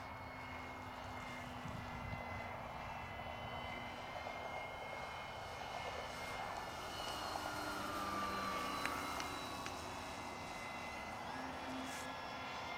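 Small propeller aeroplane's engine running in flight, a steady high drone. It gets louder and its pitch slides down as the plane passes closest, about eight seconds in.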